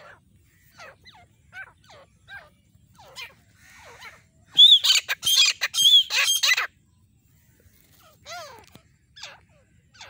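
Female grey francolin calling: a run of short, falling notes about every three-quarters of a second, then a loud, harsh burst of calling for about two seconds halfway through, then a couple more short notes near the end.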